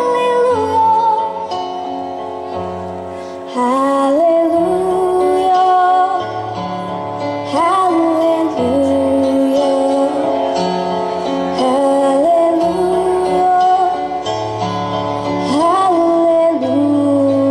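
A young woman singing a slow ballad live over instrumental accompaniment, holding long notes with slides between them while the bass steps from note to note.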